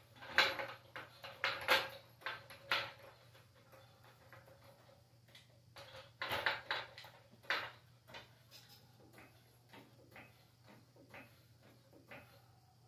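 Metal floor jack being rolled on concrete and set under the car, with irregular clanks and rattles in two bunches, then only faint scattered clicks.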